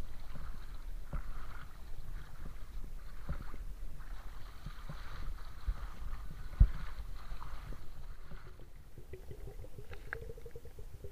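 Legs wading through shallow seawater, sloshing and splashing, with one sharp knock about two-thirds of the way in. Near the end the sound turns muffled and underwater, with a steady low tone.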